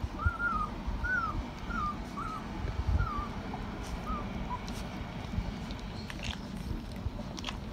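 Rottweiler puppy whimpering while nursing: about six short, high squeaks in the first four seconds, each one arching up and then dropping in pitch, over a steady low rustle from the litter.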